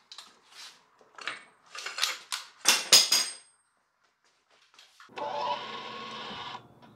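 A run of sharp metallic clicks and clatter, loudest about three seconds in. Then a small motor runs steadily for about a second and a half and cuts off.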